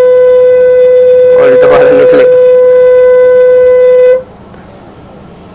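A loud, steady single-pitched tone that cuts off abruptly about four seconds in, with a brief voice under it; after it stops, only a low background hum remains.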